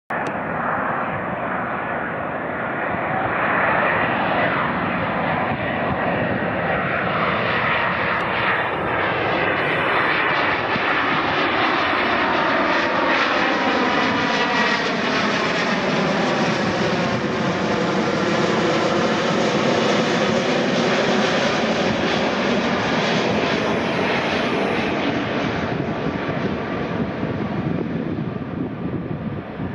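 Boeing 777-200ER airliner's twin jet engines on final approach, a loud steady rumble and hiss that swells a few seconds in. A whooshing tone sweeps down and back up in pitch as it passes close overhead, then eases slightly near the end.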